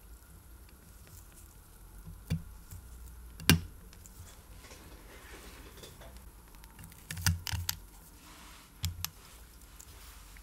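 Scattered sharp clicks and knocks of a watch case and small parts being handled and pressed on a work mat, the loudest about three and a half seconds in and a quick cluster around seven seconds.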